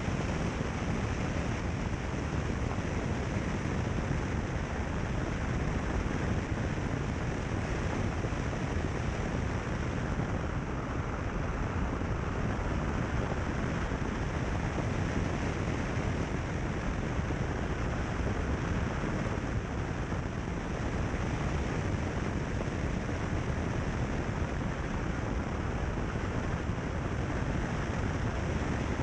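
Steady rush of wind on the microphone of a camera mounted on the bonnet of a car driving along a gravel road, with a deep rumble of road and tyre noise beneath it. No engine note stands out.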